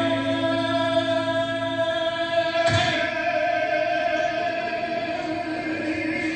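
Singers holding one long note in harmony over a musical accompaniment. The chord shifts about two and a half seconds in, with a soft thump.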